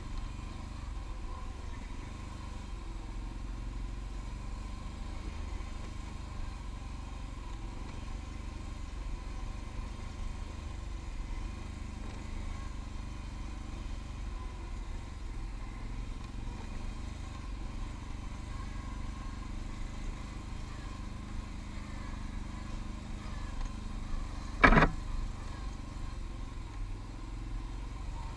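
ATV engine running steadily under way, with one sharp knock near the end.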